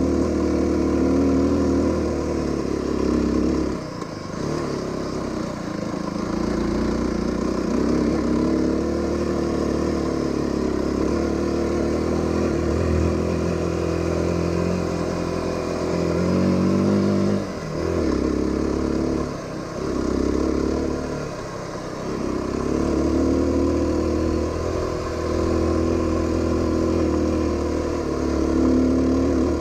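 Aprilia RX125 motorcycle engine running on the ride, its revs rising and falling. There are brief dips about four seconds in and several times past the middle.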